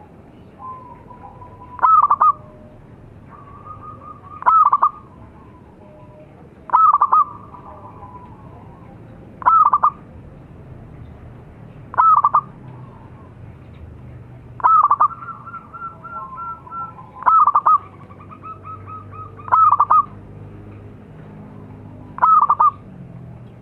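Zebra dove (perkutut) singing its loud, staccato cooing song: a short burst of rapid coos repeated about every two and a half seconds, nine times.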